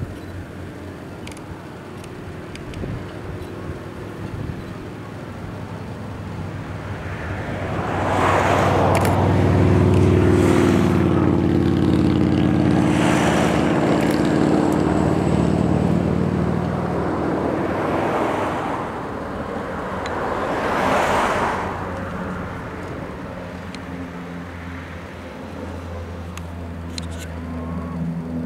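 Steady drone of a Viking CL-415 air tanker's twin turboprop engines. It swells in the middle as the aircraft fly by and rises again as one climbs overhead. Four short rushing swells of noise rise and fall over the drone.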